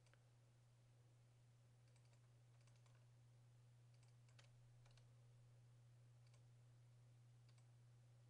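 Near silence: faint computer mouse clicks, scattered and sometimes in quick pairs, over a steady low hum.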